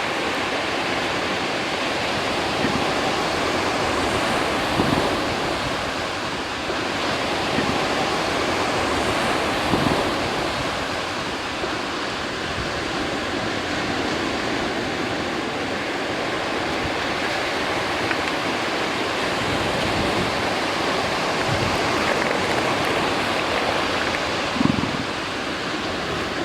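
Ocean surf washing steadily on the beach, with wind on the microphone. A few brief louder low sounds stand out about five, ten and twenty-five seconds in.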